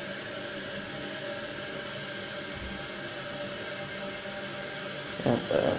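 Kohler Wellworth toilet tank refilling: a steady hiss of water through the fill valve with a faint steady tone.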